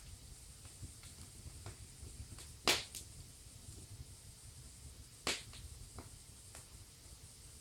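Wood fire in a fireplace crackling: a loud double pop a little under three seconds in and another pop a little after five seconds, with fainter crackles between them, over a low, steady rumble of burning.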